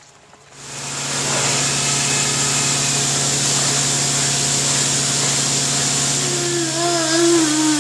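Dairy milking equipment starts running about half a second in and goes on as a loud, steady machine hum with hiss, like a milking vacuum pump. Near the end a short, wavering pitched sound rises above it.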